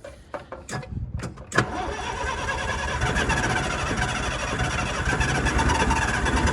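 Bobcat 743 skid steer's diesel engine catching on starter fluid: a few sharp clicks, then about a second and a half in it fires and runs steadily.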